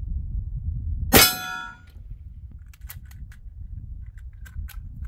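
A single shot from a PCP air pistol with the pellet striking a steel silhouette target, which rings with several clear tones for about half a second. Several light clicks follow as the pistol's action is worked.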